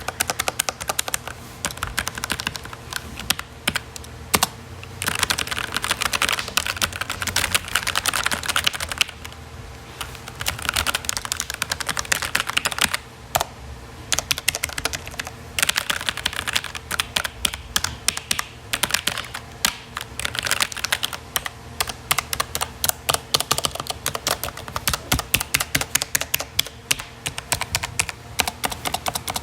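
Typing on a computer keyboard. Fast runs of key clicks lasting a few seconds alternate with short stretches of slower, scattered keystrokes.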